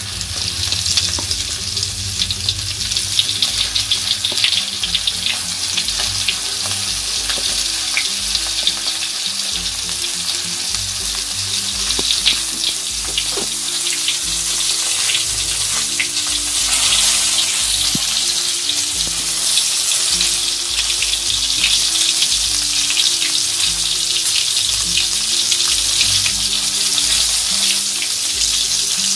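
Flour-coated pieces of sea fish deep-frying in hot oil in a wok: a steady sizzle full of small crackles and spatters, starting as the fish goes in and growing a little louder after about 17 seconds.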